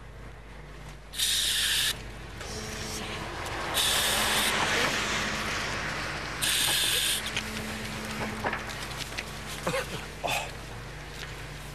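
A handheld pepper-spray canister is fired in three short hissing bursts, one into each of three people's faces: about a second in, around four seconds in, and near six and a half seconds. Scattered small knocks and scuffs follow.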